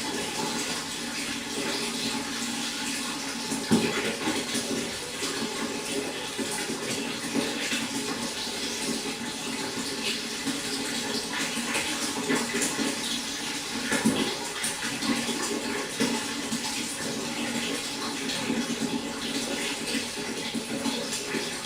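Pond water splashing and trickling steadily, with a couple of louder splashes about four seconds in and near the middle.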